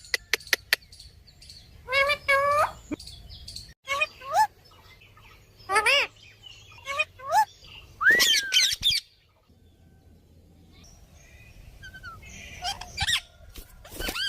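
A pet parrot giving a series of short, shrill calls that swoop up and down in pitch, one every second or two, with a lull in the second half. A few sharp clicks come right at the start.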